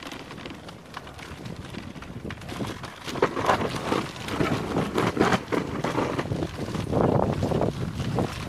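Dog sled moving over snow, with wind buffeting the microphone; the rushing noise grows louder about three seconds in and comes in uneven gusts.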